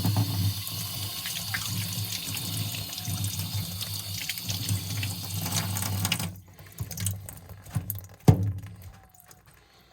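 Water running from a faucet fitted with new washers, shut off abruptly about six seconds in, followed by a few faint clicks and one sharp knock.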